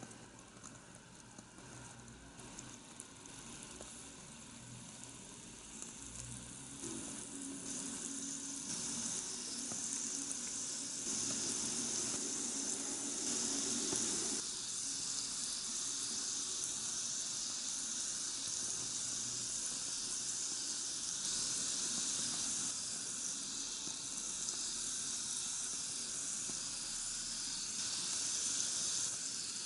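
Tiny meatballs deep-frying in a miniature pot of hot oil: a sizzling hiss that builds over the first ten seconds or so as the oil bubbles hard, then holds steady.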